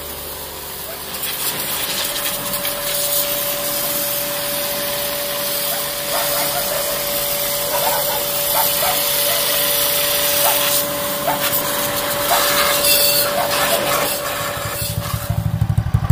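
A pressure washer runs with a steady whine and a loud spray hiss. About a second before the end, the Thai-made Honda Dream's small single-cylinder engine starts and idles with a fast low beat, running again for the first time after sitting ten years.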